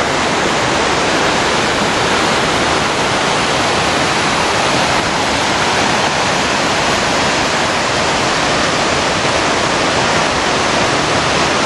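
Mountain stream cascading over boulders: a steady, even rush of whitewater.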